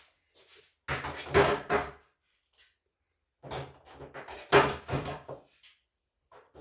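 Wooden boards being handled in two bursts of knocking and scraping, each a second or two long, with a couple of heavy knocks in each.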